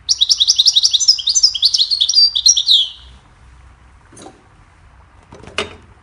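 European goldfinch singing a rapid, twittering run of quick high notes for about three seconds. Two short knocks follow, the second louder and near the end.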